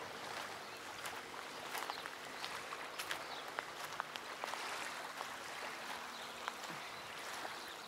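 Water trickling and lapping, with many small irregular clicks and pops.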